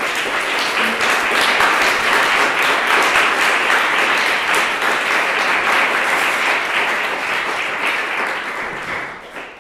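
Audience applauding for about nine seconds, tailing off near the end.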